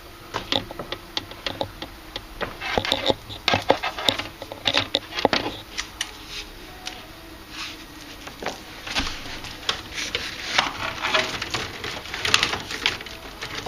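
Tape being peeled off a cable join, a run of irregular rasping rips and small clicks as the cables are handled.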